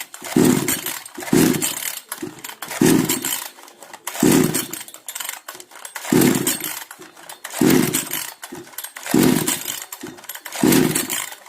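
Kisan Kraft 58 cc two-stroke chainsaw being pull-started on choke. The recoil starter is yanked about eight times, roughly one pull every second and a half, and the engine turns over without catching: the saw has a starting fault.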